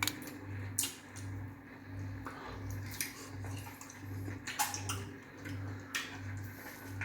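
Wet mouth and hand eating sounds of fufu with okra soup: sticky smacks and clicks now and then, over a low hum that pulses about twice a second.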